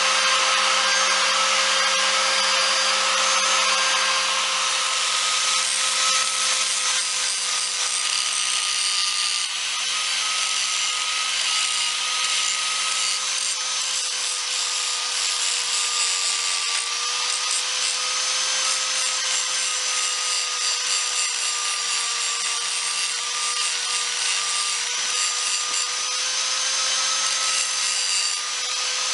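Handheld electric grinder running steadily against steel, its motor whine dipping a little as it bears on the work: the jack stand is being ground clean of paint and grooved ready for MIG welding.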